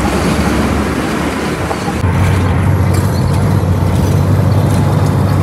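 A truck's engine runs as the truck drives, over road and wind noise. For about the first two seconds a rushing noise is strongest; after that a steadier low engine hum comes forward.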